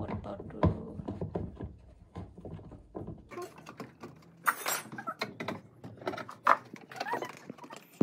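Scattered clicks and knocks of a screwdriver and hands working on the plastic body of a twin-tub washing machine under repair, over a low steady hum that cuts off about three seconds in.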